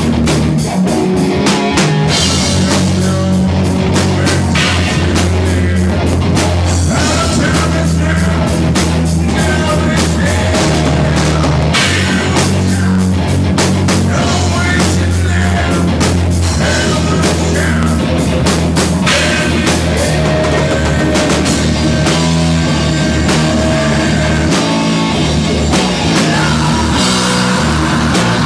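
Live rock band playing loud and continuous: a drum kit hitting steadily over heavy electric guitar.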